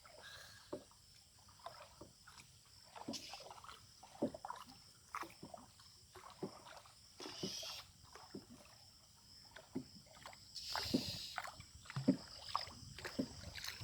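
Small wooden dinghy being paddled: faint splashes and drips of water from the oar, with scattered small knocks, and a louder rush of water about eleven seconds in.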